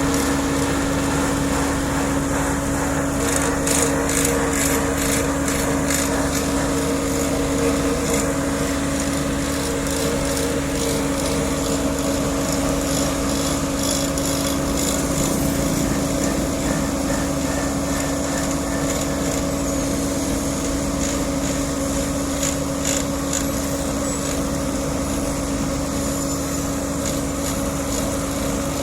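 Diesel engine of road-paving machinery running steadily, a constant drone with a held tone, with scattered light rattling and ticking over it.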